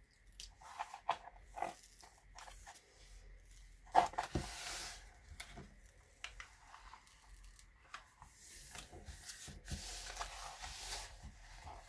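Diamond painting canvas's protective cover sheet being peeled back off the sticky drill field and handled: irregular crackling and rustling of the sheet, with a sharp crackle about four seconds in.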